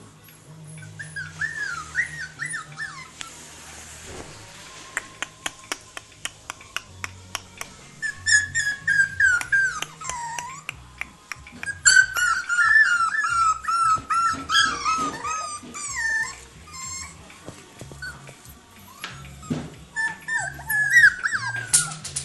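Young puppies, about five and a half weeks old, whining and whimpering in high, wavering cries that come in several bouts. Between the first bouts there is a run of light clicks and taps.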